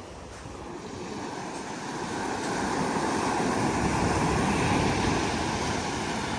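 Sea surf rushing on the shore: a steady wash of breaking waves that swells to its loudest about halfway through and eases a little near the end.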